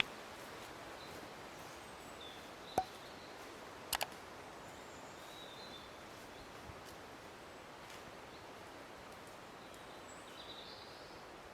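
Woodland ambience: a steady hiss of wind in the trees with a few faint bird chirps, broken by a sharp click a little under three seconds in and a quick double click about a second later.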